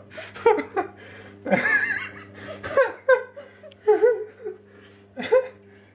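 Laughing in a string of short, broken bursts, over a low steady hum.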